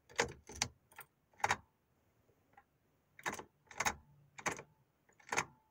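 Key clicking in a Chevrolet truck's ignition lock as it is put in and turned over and over, with the keyring rattling: about eight sharp separate clicks and no cranking at all. The truck is dead with nothing turning on, which the owner thinks may be a dead battery.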